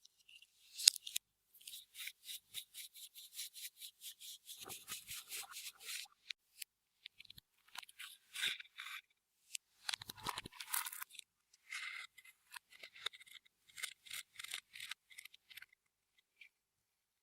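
Clear slime being squished and worked by hand, giving quick runs of small crackling clicks and pops with short pauses between them. The clicking stops about a second before the end.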